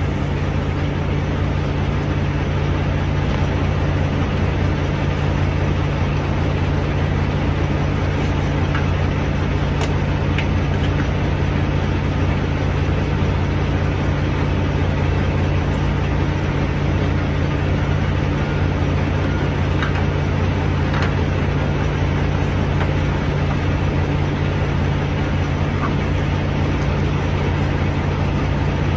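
Diesel semi-truck engine idling steadily, with a few faint clicks.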